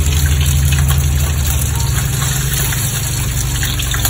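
Slices of luncheon meat frying in hot oil in a wok, with a steady sizzling hiss and fine crackles. A steady low hum runs underneath and is the loudest part.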